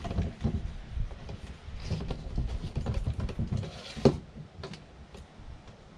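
A knife being worked into the base of a green iguana's tail on a tabletop: uneven low thumps and handling noise with faint scrapes, and one sharp click about four seconds in.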